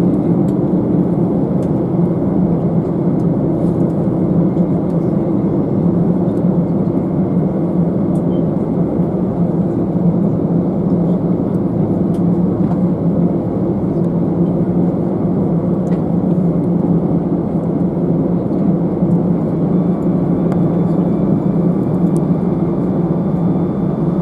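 Steady engine and airflow noise heard inside the passenger cabin of an Airbus A319-111 with CFM56 turbofans. It is a loud, even, deep hum.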